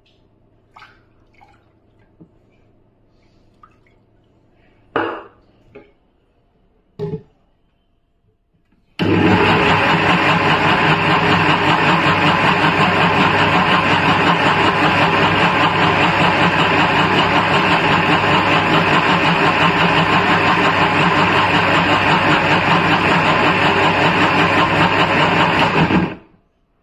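Kenstar mixer grinder motor running loud and steady for about seventeen seconds, its steel jar loaded with a wet wheat mixture, starting suddenly and cutting off near the end. Before it starts, a few knocks and clinks as the steel jar and lid are handled.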